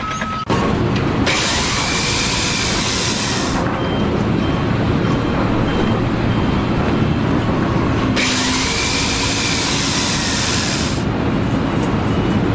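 Steady mechanical rumble with two long bursts of loud hissing, each lasting two to three seconds, the first a little over a second in and the second about eight seconds in.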